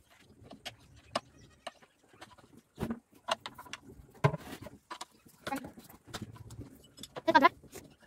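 Irregular clicks and knocks from hands and a metal rod handling a small engine that is not running. About seven seconds in, a short wavering call, the loudest sound, stands out.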